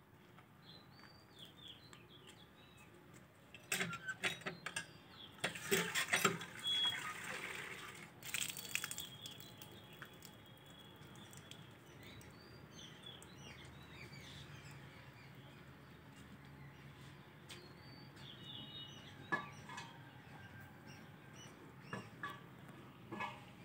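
Small birds chirping and calling over quiet outdoor ambience, with a louder stretch of clattering, rustling noise about four seconds in that lasts several seconds, and a few sharp clicks near the end.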